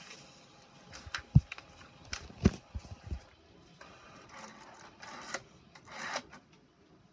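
Hand handling an HP inkjet all-in-one printer and its paper: a run of sharp knocks and clicks against the printer's front and tray, the loudest about a second and a half and two and a half seconds in.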